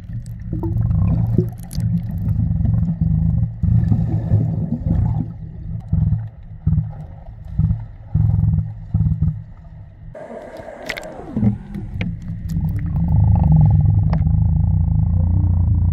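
Muffled underwater rumble of moving water picked up by a submerged camera, surging unevenly at first, with a short rush about ten seconds in, then settling into a louder, steady rumble.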